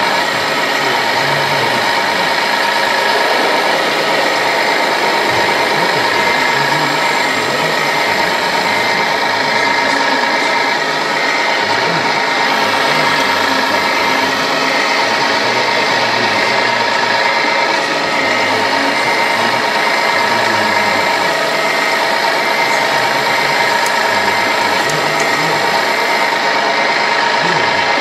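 Electric motors and gearboxes of radio-controlled model construction machines, an excavator and a truck, running with a steady whine over a busy gear rattle.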